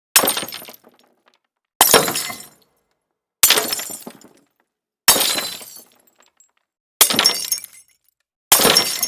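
Glass shattering, six times in a row, about every one and a half to two seconds: each a sudden crash with tinkling that dies away within a second.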